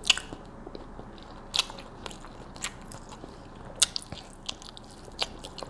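Close-up mouth sounds of someone eating smoked rib tips: chewing, with scattered sharp wet smacks and clicks of the lips and tongue every second or so.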